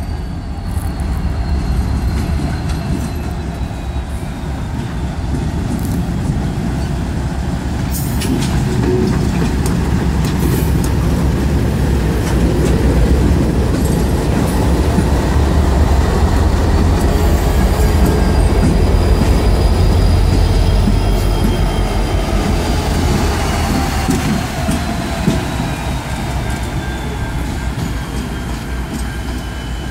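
Two diesel-electric locomotives running light at low speed close by: a GE Dash 9-40C with its four-stroke V16, followed by an EMD SD60E with its two-stroke V16. Their engines give a steady rumble that grows loudest as they pass and then eases off. Thin, high wheel squeal glides slowly in pitch, and a few clicks come about eight seconds in.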